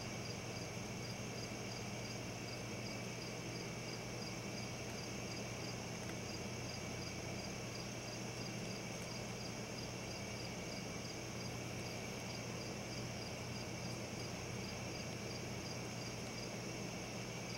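Night insects, crickets or katydids, chirping steadily, one high chirp repeating at an even pace. A low steady hum lies underneath.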